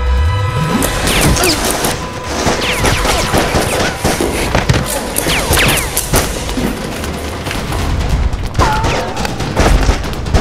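Rapid, near-continuous gunfire in a gunfight, shot after shot, with action music underneath.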